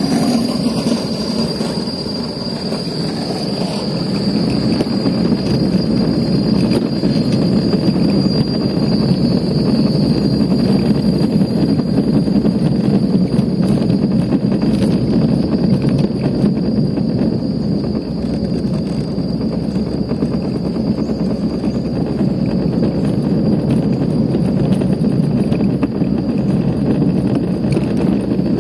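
Luge cart's wheels rolling steadily over the track, a continuous loud rumble, with a thin high whine over the first nine seconds or so.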